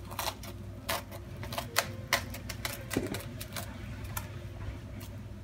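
Plastic cling film crackling in irregular sharp clicks as it is smoothed and pressed down over a silicone ice cube tray.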